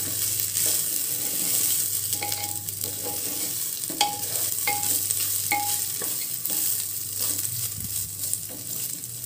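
Raw rice grains frying in ghee and oil in an aluminium pressure cooker, sizzling steadily as a wooden spatula stirs and scrapes them. Several times the spatula knocks against the pot, each knock with a short metallic ring.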